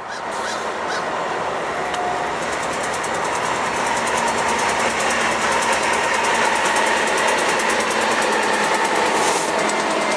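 CN freight train passing close by: two diesel locomotives run past, then freight cars roll by with a rapid, even clicking of wheels over the rails, the noise building steadily.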